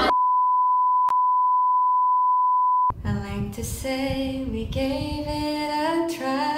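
A steady, loud beep tone around 1 kHz for about three seconds, the standard bleep tone, with a brief click about a second in; it cuts off suddenly. A woman then sings a short melodic phrase.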